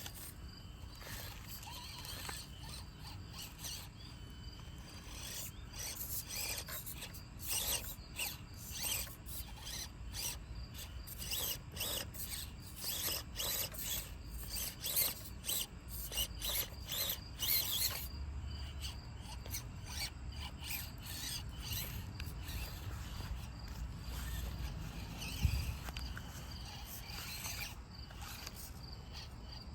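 RC crawler truck being driven over a backyard track: short, irregular bursts of its electric motor and drivetrain whirring, with tyres rubbing and scrabbling over the ground, busiest through the middle of the stretch and quieter near the end.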